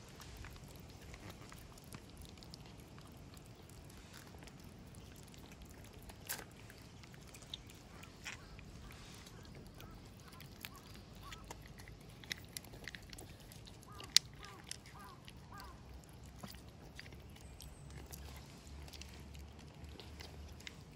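Two cats eating wet food from bowls: faint, scattered wet smacking and chewing clicks, with a sharper knock about 6 s in and a louder one about 14 s in.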